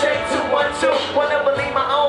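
Live hip-hop music with a male lead vocal on the microphone, heard through the concert sound system.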